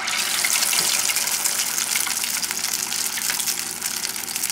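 Corn-flour-battered chicken pieces deep-frying in a pot of hot oil: a loud, dense sizzle full of fine crackles, easing slightly toward the end.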